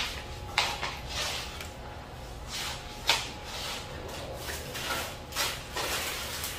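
Handling noise: a series of short rustles, scrapes and light bumps, loudest right at the start and about three seconds in.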